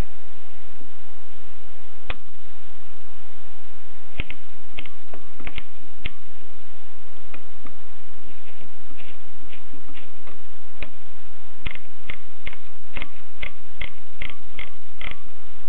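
Mignon index typewriter clicking as characters are printed: scattered single strikes at first, then a quicker run of clicks from about two-thirds of the way in, over a steady hiss.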